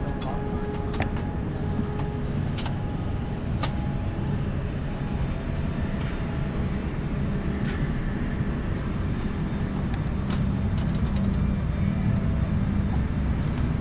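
Steady low rumble heard from inside a moving vehicle, growing a little louder near the end, with a few faint clicks.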